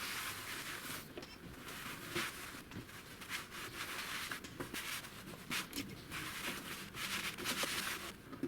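Irregular rubbing and scrubbing strokes on the HP 9825B's case as it is cleaned.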